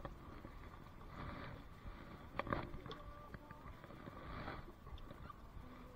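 Faint low rumble and handling noise aboard a small fiberglass boat, with one sharp knock about two and a half seconds in.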